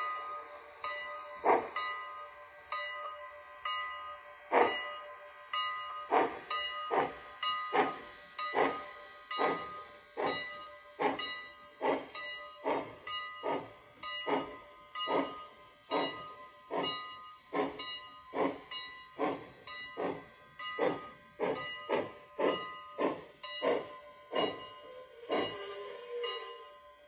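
Steam exhaust chuffs from the onboard sound of an HO scale brass Lackawanna P-1 4-8-2 Mountain type locomotive model as it pulls away slowly: a few widely spaced chuffs at first, then a steady beat of about two a second that fades near the end.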